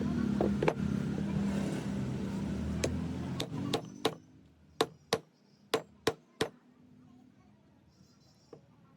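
Sharp metal knocks, hammer blows on the pump's parts during the bearing change, about ten of them, several in quick pairs, over a steady low hum that dies away about four seconds in.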